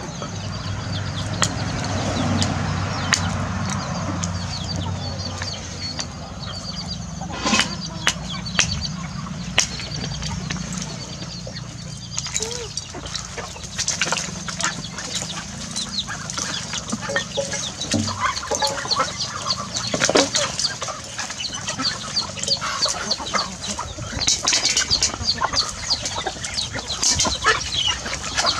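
Free-ranging chickens clucking and calling, busier and more continuous in the second half, with a few sharp clicks about eight to ten seconds in.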